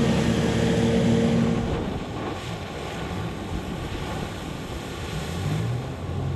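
Watercar amphibious vehicle's Honda 3.7-litre V6 running steadily at speed while planing on water. About two seconds in the engine falls back under the rush of water spray and wind.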